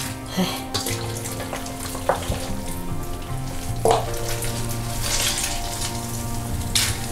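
Hands squishing and rustling fresh cilantro, scallions, ginger and garlic into a raw lamb leg in a stainless steel bowl, marinating it, in irregular crackly bursts that grow stronger near the end. Steady background music runs under it.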